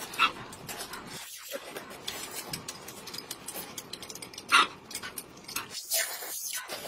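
Close-up eating sounds: two people slurping broth and noodles from small glass bowls and chewing, with light clicks of chopsticks on glass. Two loud slurps stand out, one right at the start and one about two-thirds of the way through.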